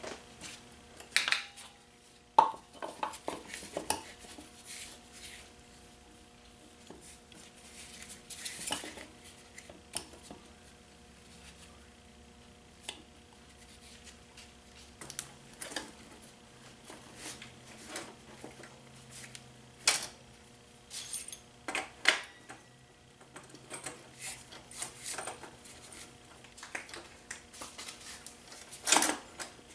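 Metal parts of a Honda CT70 minibike's rear wheel and drum-brake assembly clinking and knocking as they are handled and fitted back together by hand. The sharp clicks come at irregular intervals, with a few louder knocks.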